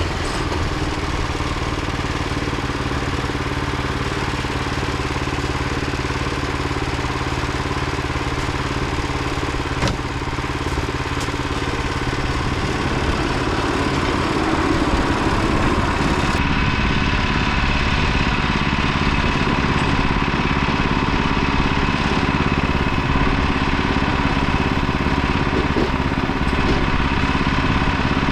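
Wood-Mizer LX25 portable band sawmill running under engine power. About halfway through the sound grows a little louder and a higher steady whine joins it, with one short click shortly before.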